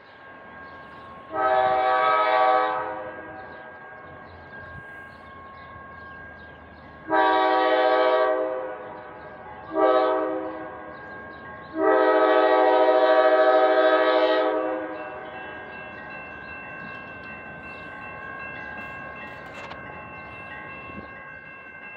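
Air horn of a GE B23-7R diesel locomotive sounding the grade-crossing signal: two long blasts, a short one and a final long one, a chord of several tones. The pattern is the standard warning for a public road crossing ahead.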